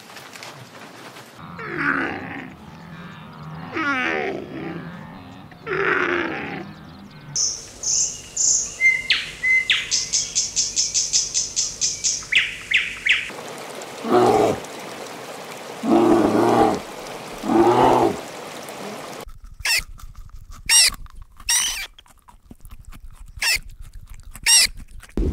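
A run of different animal calls in turn: wavering pitched calls, then rapid high chirping, then lower calls, then a few sharp high squeaks near the end.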